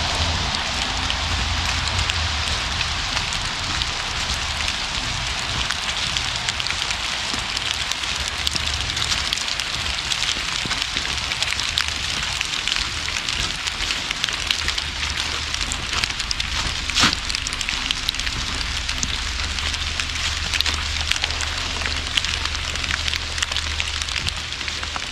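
Steady rain falling, a dense patter of many small drop ticks over a low, steady rumble, with one sharper tick about seventeen seconds in.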